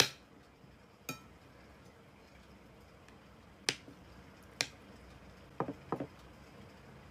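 A metal spoon clinking against a ceramic plate while scooping food: a handful of sharp clicks at irregular intervals, the loudest at the very start and two close together near the end.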